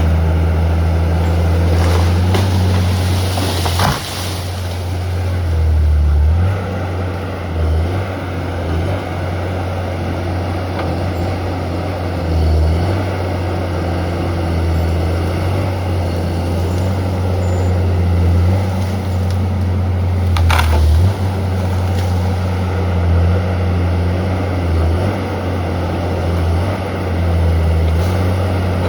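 Heavy diesel engine of a Valmet 415 forestry machine running steadily, its pitch shifting up and down as the load changes while it works a dangle saw head. There are two brief, louder, noisy bursts: one about four seconds in and one about twenty seconds in.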